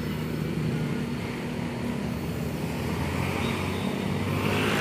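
Traffic on a winding mountain road: a steady drone of car and motorcycle engines, with one vehicle growing louder near the end.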